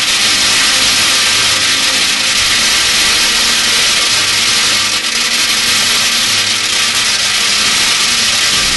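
A continuous stream of metal BBs pouring onto a tin can, a loud, dense, unbroken metallic rattle in which no single strike stands out.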